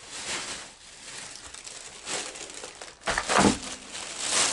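Thin plastic shopping bag rustling and crinkling as it is handled and pulled open, with a louder thump a little past three seconds in.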